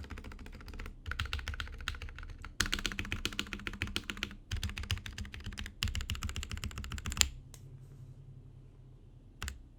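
Fast typing on a custom 60% mechanical keyboard: lubed and filmed Gateron Ink Black V2 linear switches on a brass plate, with DSA PBT keycaps, in a frosted acrylic case. Runs of rapid keystrokes with brief pauses stop about seven seconds in, and a single keypress follows near the end.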